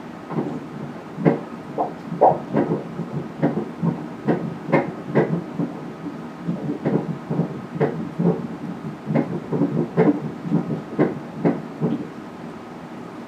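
Fetal heartbeat played through an ultrasound machine's Doppler: a steady run of rhythmic pulses, a little over two a second, in line with a fetal heart rate of about 131 beats a minute at 28 weeks. It starts about half a second in and stops about a second before the end.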